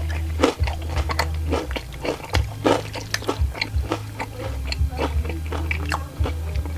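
Close-miked chewing and biting, with many quick irregular crunches of crisp fried food between wetter mouth sounds.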